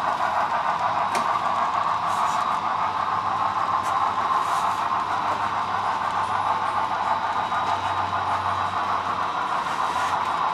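Model train, a steam locomotive with tender pulling a string of boxcars, rolling along the layout track: a steady rushing hiss with a few faint clicks over a low hum.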